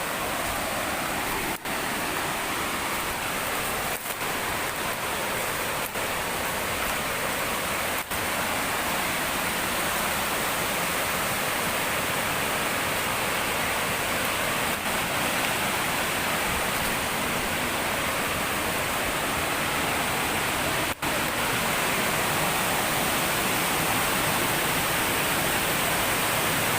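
Steady rushing of water falling from a tall waterfall, broken by a few momentary dropouts in the sound.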